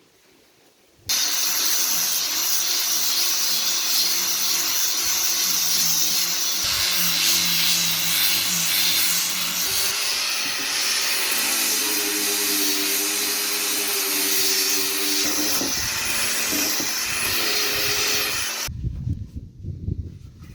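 Electric power tool working wood: it starts suddenly about a second in, runs loud and steady with a hum that shifts pitch a few times, and stops abruptly near the end.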